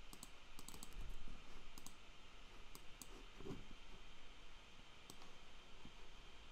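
Faint, scattered clicks of a computer mouse and keyboard as a value is copied and pasted into a software field, a few sharp clicks at irregular intervals.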